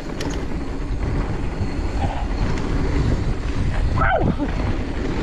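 Wind and trail rumble on a chest-mounted camera while riding an e-bike along a mountain-bike trail, with one short high sound sliding down in pitch about four seconds in.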